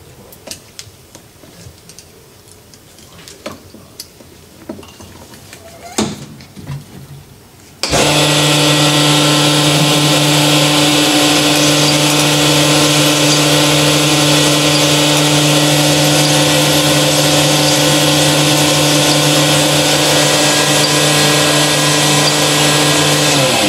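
A few light clicks and knocks, then about eight seconds in a motor-driven brush hone starts up and runs at a steady speed in the engine block's cylinder bores, the final finishing pass after the cylinders have been honed to size. It begins to spin down at the very end.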